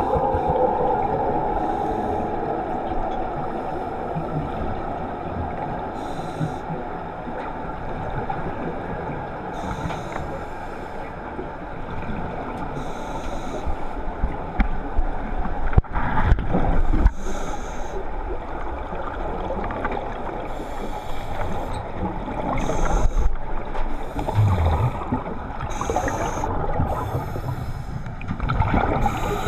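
Muffled underwater sound through an action-camera housing: scuba regulators breathing, with a burst of exhaled bubbles every two or three seconds over a steady rumble. A few louder knocks and rumbles come about halfway through.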